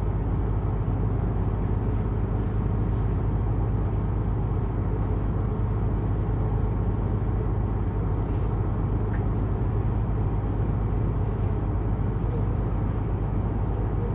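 Excursion boat's engine running steadily, a low even drone heard on board.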